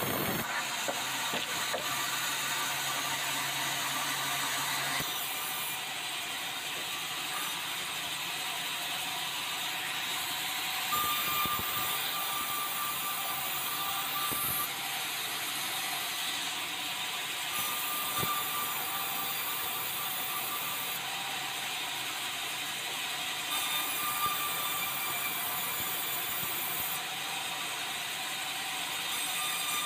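Sawmill band saws running and cutting red meranti boards: a steady, loud mechanical din whose character changes about five seconds in, with a higher whine that comes and goes several times as the boards are fed through the blade.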